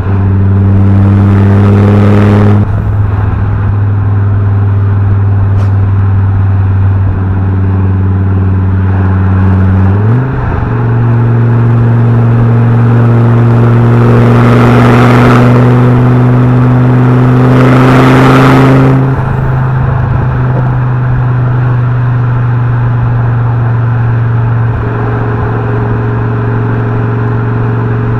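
Fiat Coupé 20V Turbo's five-cylinder engine running steadily while the car is driven. Its note steps up a little in pitch about ten seconds in. Two swells of rushing noise ride over it, one brief near the start and a longer one in the middle.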